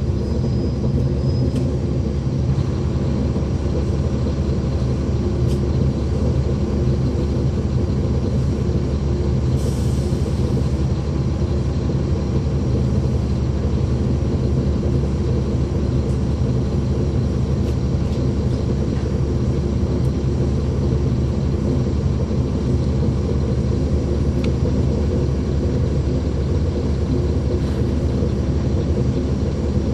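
Caterpillar C13 ACERT straight-six diesel of a NABI 40-foot transit bus, heard from inside the bus, running with a steady low drone that holds one pitch throughout.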